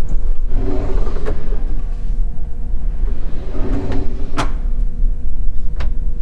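Ori furniture cabinetry being worked: two sliding movements, each ending in a sharp click, and a third click near the end, over a steady low rumble.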